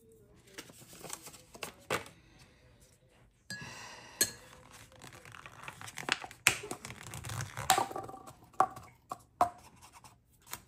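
Small plastic portion cups being handled and their plastic lids pressed on, with rustling and a series of sharp plastic clicks.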